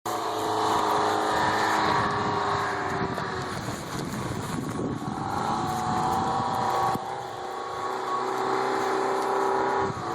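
A motor vehicle's engine running with a steady drone, its pitch shifting a little a few times.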